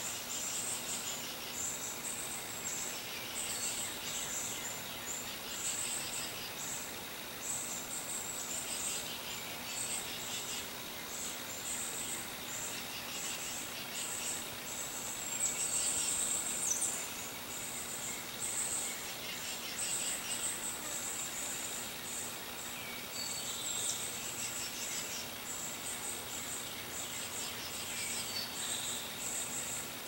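Insects chirping in rapid pulsed trains, high-pitched and steady, with one louder, longer trill about halfway through. A few bird calls come in lower in pitch now and then.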